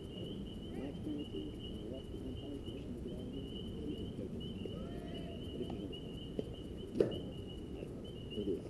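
Insects chirping in a steady, high pulsing trill, over a low murmur of distant voices. One sharp crack sounds about seven seconds in.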